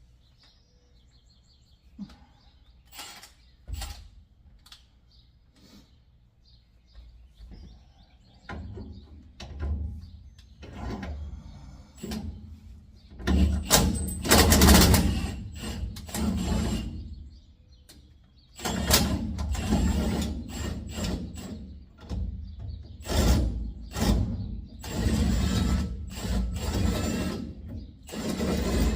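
Impact wrench hammering in repeated bursts, working the nuts off an axle's U-bolts. A few light clinks and knocks come first; the bursts start about a third of the way in and are loudest around the middle.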